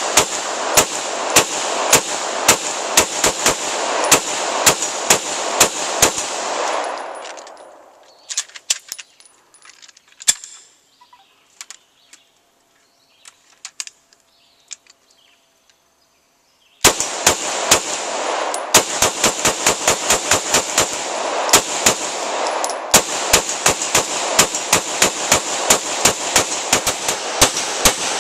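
9mm Glock pistol fired fast from a 100-round Beta C-Mag drum, shot after shot with an echo behind each, for about six seconds. The firing then stops for about ten seconds, with only faint metallic clicks as the pistol is handled. A second long string of rapid shots, about four a second, starts about seventeen seconds in.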